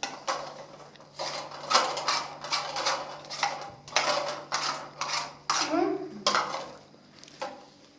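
Dishes and cutlery clattering in a quick, irregular run of clinks and knocks, over a steady low hum.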